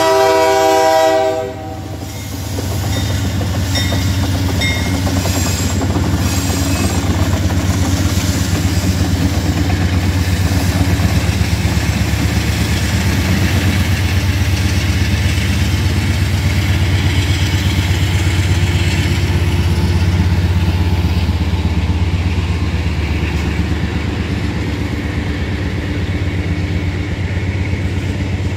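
A freight train's horn sounds and cuts off about a second and a half in. Then a Union Pacific diesel locomotive runs past, hauling covered hopper cars, with a steady low rumble and the wheels clacking on the rails.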